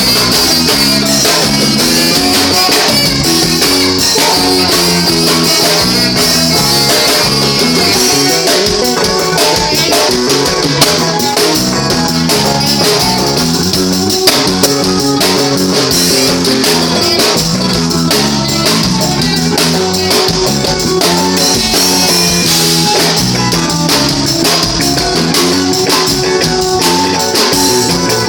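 A forró band playing, with guitar over a steady drum-kit beat.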